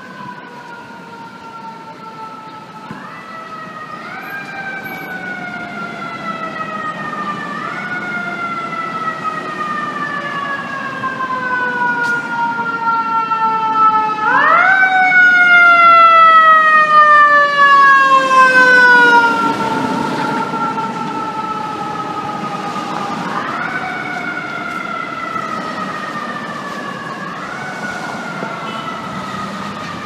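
Fire engine siren wailing. Each cycle jumps up quickly and then slides slowly down. It grows louder as the engine approaches, is loudest midway, and fades as it passes, over low street traffic noise.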